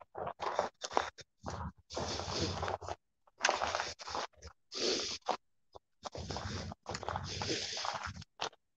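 Footsteps crunching and scraping on loose gravel over pavement, in irregular bursts that cut in and out.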